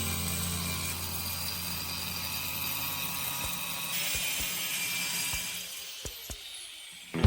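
A workshop power tool running with a steady high whir, fading out near the end, with a few light clicks in the second half.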